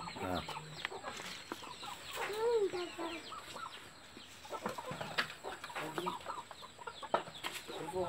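Aseel chickens clucking and calling in a string of short calls, with one longer rising-and-falling call about two and a half seconds in.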